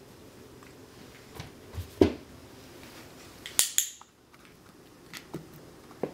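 A few light knocks and clicks from a kitten playing fetch with a small toy: a dull thump about two seconds in and a sharper click with a brief clatter about three and a half seconds in, then a couple of faint ticks.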